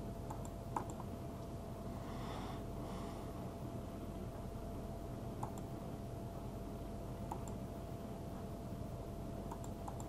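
A handful of sharp computer-mouse clicks, the loudest about a second in, over a steady electrical hum and hiss with a thin steady tone. A brief soft hiss comes about two seconds in.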